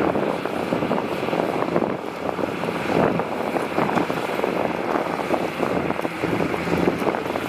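Heavy diesel earthmoving machinery running steadily, a rough continuous rumble with wind buffeting the microphone.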